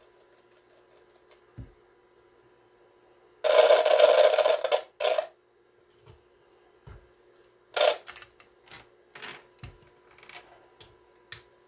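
Clicks and knocks of knobs and switches being worked on a Super Star T747 microphone test box, with a loud burst of noise lasting over a second about three and a half seconds in and a shorter one just after. A faint steady hum runs underneath.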